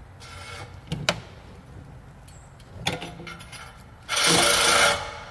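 Cordless reciprocating saw cutting into a rusted steel exhaust pipe in one short burst about four seconds in, stopping after about a second, after a couple of knocks as the blade is set against the pipe. The owner suspects the stop-start running comes from a dead battery.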